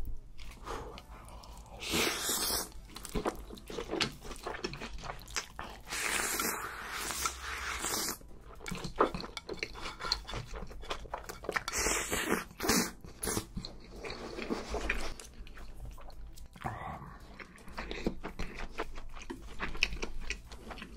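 Close-miked eating sounds: Chapagetti black-bean noodles slurped in several long pulls, with wet chewing and small mouth clicks in between.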